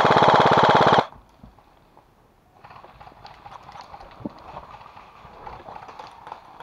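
Airsoft rifle firing one full-auto burst of about a second, a rapid, even rattle of shots. Softer rustling and scuffing of movement follows.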